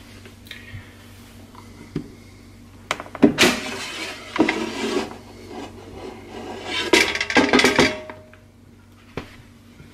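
Air fryer basket drawer being pulled out of a Power XL air fryer: a click, then a scraping rattle as it slides out, and a second burst of clattering as the perforated basket is set down on the counter.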